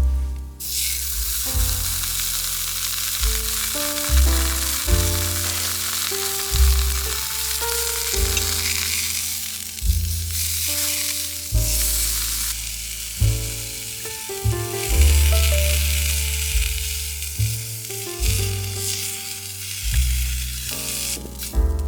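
Food sizzling as it fries in a hot pan, a steady crackling hiss, over background music with a pulsing bass line.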